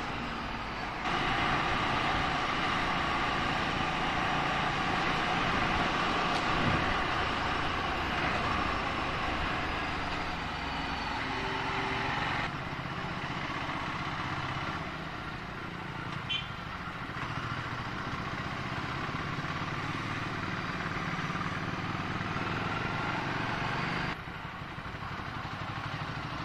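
Ducati Scrambler Sixty2's air-cooled V-twin running under way, with road and wind noise. The sound jumps abruptly a few times.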